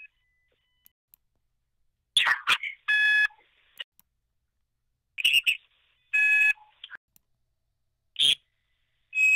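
Phone-line audio of short garbled, robotic-sounding bursts, each followed by a brief buzzy beep, the pair repeating about every three seconds: the strange noises heard on calls from German mobile numbers before the caller speaks.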